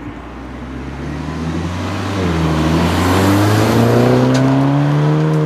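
2014 Volkswagen Scirocco R's turbocharged 2-litre four-cylinder engine accelerating hard past. Its note rises in pitch and grows louder, with a brief dip in pitch about two seconds in before it climbs again.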